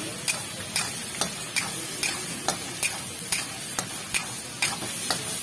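Steel spatula clanking against a karahi (wok) at a steady pace of about two to three strokes a second as chicken karahi is stirred, over the steady sizzle of the chicken frying in oil.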